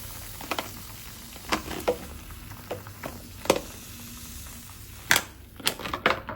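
Seashells being handled during cleaning: a run of sharp clicks and taps, about eight scattered irregularly, over a steady fizzing hiss.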